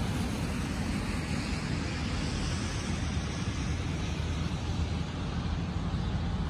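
Wind buffeting the microphone: a steady rushing noise with a heavy, fluttering low rumble.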